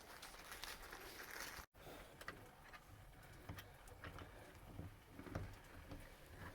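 Faint scattered clicks and light rustling of door-latch hardware being handled, with a brief dropout to silence about two seconds in.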